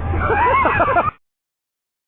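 A flock of seagulls crying over one another in many short cries that rise and fall in pitch. The sound cuts off suddenly a little over a second in.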